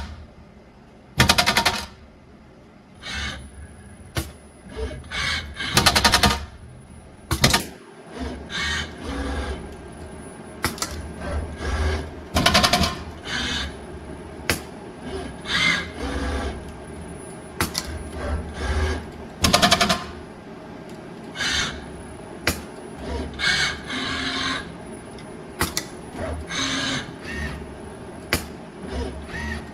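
Flexible parts feeder vibrating its tray so the metal zipper sliders on it rattle in short, loud bursts, several times over, with quieter mechanical clicks and clatter from the pick-and-place robots between the bursts over a low steady hum.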